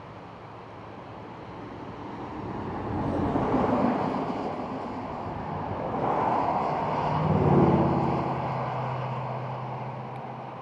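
Two vehicles passing by, one after the other: the sound swells and fades about four seconds in, then again more loudly around seven to eight seconds in, the second with a low engine note.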